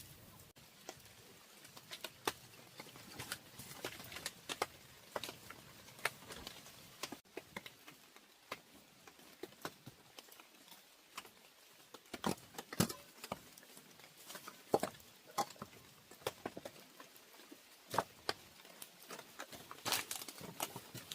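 Raindrops pattering in an irregular scatter of sharp taps, a few a second, over a faint hiss. A few louder taps cluster past the middle and again near the end.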